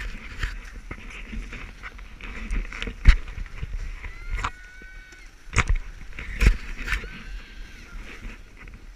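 Handling noise from an action camera held close against a winter jacket: rubbing and several sharp knocks, the loudest about three seconds in and twice more around five and a half to six and a half seconds in, over a steady low rumble of wind on the microphone.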